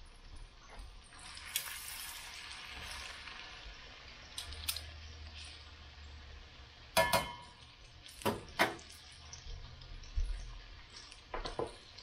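Battered fish sizzling in hot grease in a cast-iron skillet. Metal tongs clack against the pan several times in the second half.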